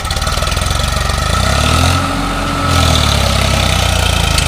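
Farmtrac 45 tractor's three-cylinder diesel engine running under load, hitched to a trolley heaped with sand. About halfway through its note rises and falls once, then it settles back to a steady run.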